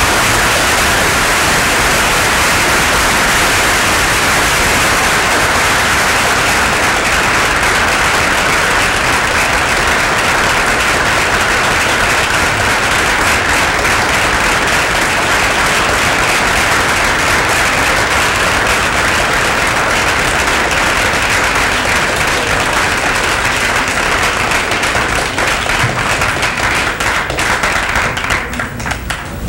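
Theatre audience applauding, a dense steady clapping that thins out near the end.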